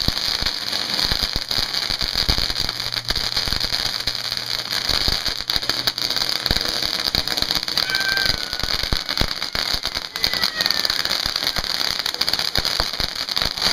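Several ground fountain fireworks going off at once: a steady dense crackle and hiss, peppered with many sharp pops.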